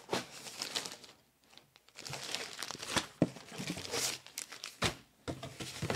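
Plastic garment bag crinkling and rustling as it is handled and lifted out of a cardboard box, in uneven spurts with a pause about a second in and a couple of sharp taps later on.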